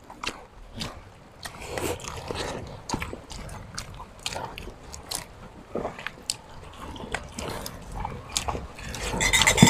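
Close mouth sounds of people eating with their hands: chewing, lip-smacking and small crunchy clicks. Just before the end comes a louder slurp of sinigang broth sipped from a bowl.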